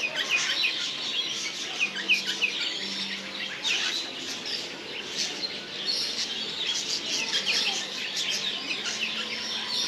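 Many parrots calling at once: a dense, continuous chatter of short high chirps and squeaks.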